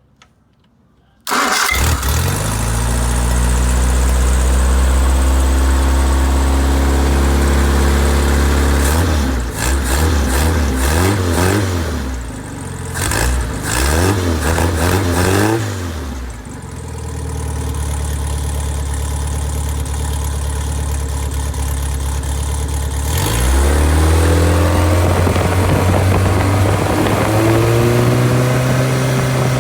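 Freshly rebuilt four-cylinder engine, not yet broken in, with good compression and oil pressure. It starts running about a second in and runs steadily, is revved up and down several times in the middle, then is held at a higher speed near the end.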